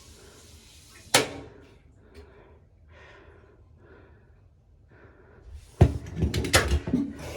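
A single sharp bang about a second in, then a quick run of loud knocks and clattering near the end, as of something hard being handled or shut.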